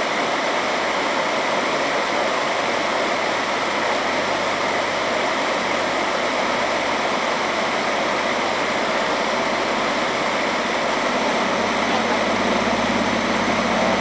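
Shallow rocky creek running over stones and through small riffles: a steady rush of water. About eleven seconds in, a low motor hum comes in beneath it.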